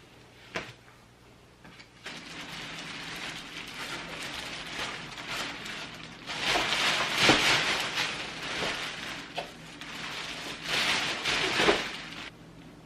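Rustling of packaging and fabric as stroller parts are handled, growing louder in two stretches, around the middle and near the end, with a sharp click about half a second in.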